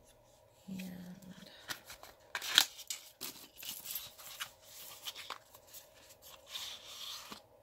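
Makeup packaging being opened by hand: a run of cardboard scrapes, crinkles and clicks as the carton is worked open and the palette taken out, with one sharp snap about two and a half seconds in.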